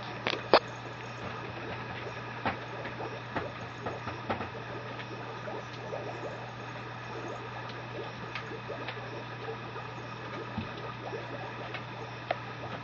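Scattered small clicks, taps and soft rustles of a Mame Shiba puppy pawing and mouthing plush and rope toys on a blanket, the sharpest click about half a second in. A steady low hum runs beneath.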